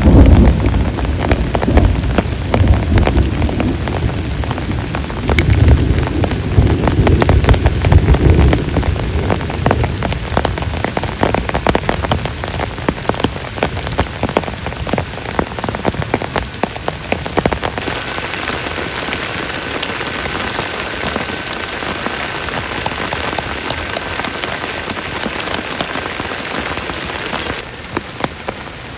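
Heavy rain pattering densely on a surface, with a low rumble of thunder through the first several seconds that then fades. A faint steady high tone is heard for a while near the end and cuts off suddenly.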